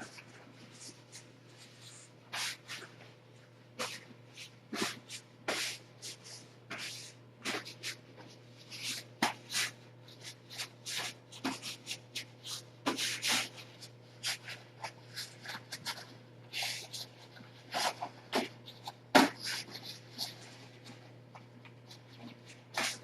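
Kittens scuffling and playing: an irregular run of small scratches, taps and rustles, over a steady low electrical hum.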